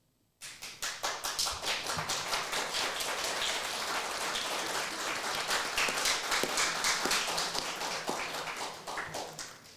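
Audience applauding: many hands clapping that start suddenly after a short silence, hold steady, then die away near the end.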